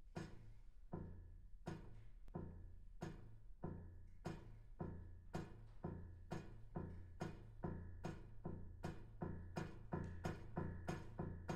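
Grand piano struck over and over in a low, percussive pulse that speeds up from about one strike a second to nearly three a second. Each strike rings briefly, over a steady low hum.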